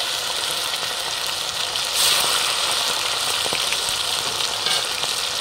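Chicken 65 pieces deep-frying in hot oil: a steady, dense sizzle that swells briefly about two seconds in.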